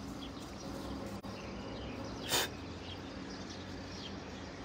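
Quiet outdoor ambience: faint insect and bird chirps over a low steady hum. About two seconds in there is one brief rustle.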